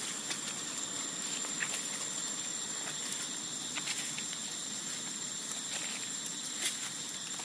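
Light crackling and rustling of dry leaves on the ground, a few scattered faint clicks over a steady outdoor hiss. A thin, steady high-pitched tone runs underneath.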